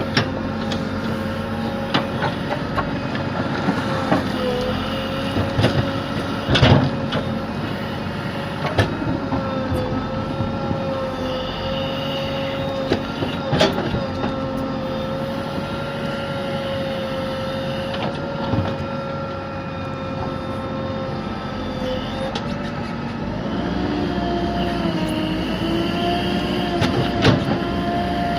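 JCB excavator running and working its hydraulics while mixing with the bucket: a steady engine and hydraulic whine that wavers and climbs in pitch in the last few seconds, with scattered knocks and clanks of the bucket.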